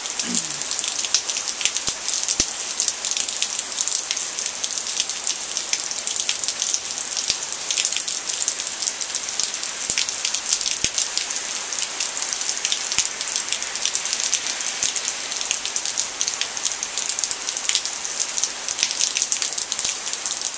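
Heavy rain falling steadily, a dense hiss with many close drops ticking on hard surfaces.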